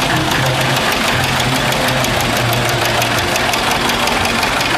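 Famulus tractor's diesel engine running steadily with a rapid, even knocking clatter.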